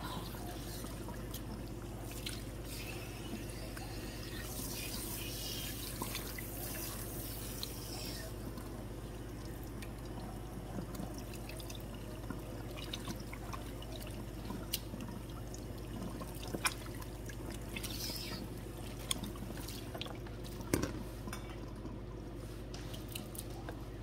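Salon shampoo-bowl sprayer running water through wet hair and into the bowl while hands work the hair, rinsing relaxer out, over a low steady hum. Scattered small clicks and splashes; the hiss of the spray is strongest in the first few seconds.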